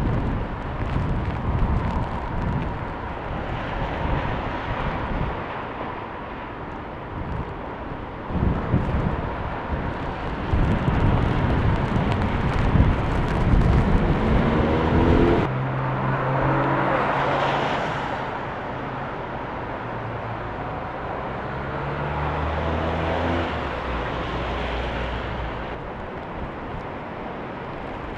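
Storm wind gusting hard against the microphone in irregular rushes. About halfway in the sound cuts abruptly to a motor vehicle engine running with a steady low hum, wind still audible.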